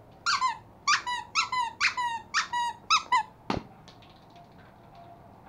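A Pomeranian puppy giving a quick run of short, high yelps, each falling in pitch, for about three seconds, then a single knock.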